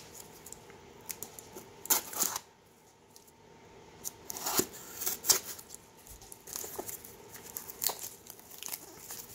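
Gloved hands picking, scraping and tearing at a small cardboard shipping box that is hard to get open, in irregular rustling and ripping bursts with sharp clicks. The loudest bursts come about two seconds in and again around five seconds.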